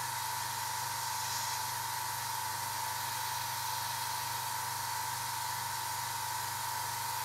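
Airbrush compressor running: a steady hum and a constant high tone under an even hiss of air from the airbrush during pre-shading.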